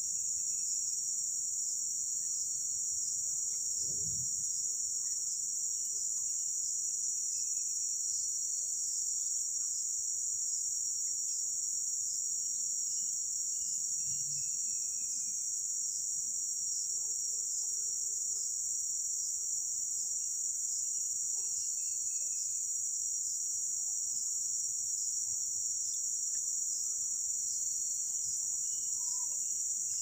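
Steady, high-pitched drone of a forest insect chorus, with faint falling bird whistles every few seconds.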